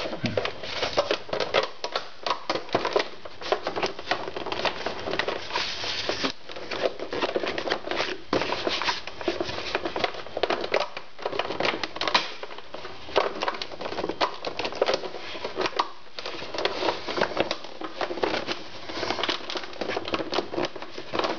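Plastic air intake housing of an Audi A4 B6 being pushed and worked into its seat by hand: a dense, continuous run of small plastic clicks, taps and creaks.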